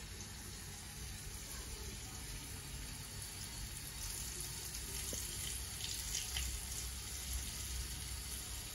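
Coconut-flour-coated crayfish deep-frying in hot oil: a steady sizzle with fine crackling that grows a little louder about four seconds in.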